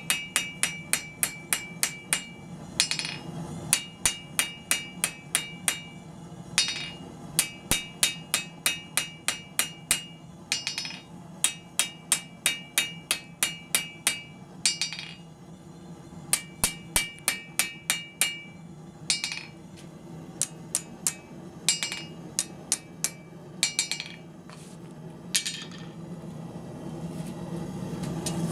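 Blacksmith's hammer forging the end of an iron bar on an anvil into a smooth, squared knob for a coat hook. Runs of blows come about four a second, each with a high metallic ring, separated by short pauses. The blows become sparser and single near the end.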